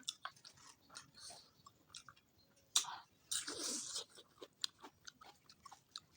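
A person chewing and biting food close to the microphone, with many small wet mouth clicks and a louder crunchy stretch of under a second just past three seconds in.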